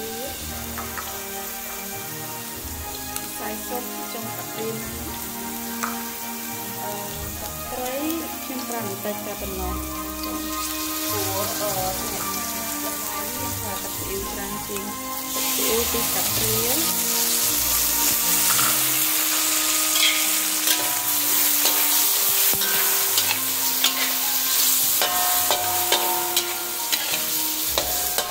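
Garlic, red chillies and black mushrooms sizzling in hot oil in a wok. The sizzle turns markedly louder about halfway through, and a metal spatula clicks and scrapes against the wok in the second half. Soft background music with a melody plays underneath.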